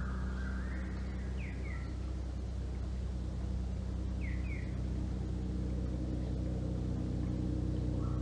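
A steady low droning hum, with short paired bird chirps a few times and a stepped rising phrase at the start and again near the end.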